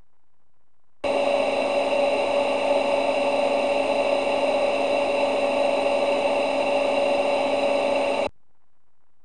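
Synthesized launch sound effect: a loud, steady roar of noise with fixed humming tones in it, starting and stopping abruptly after about seven seconds without rising or fading.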